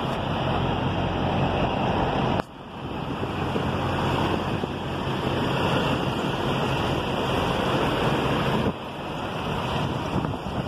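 Diesel semi-truck engine running close by, a steady low drone under heavy wind noise on the microphone. The sound drops off abruptly about two and a half seconds in and again near the end, then carries on.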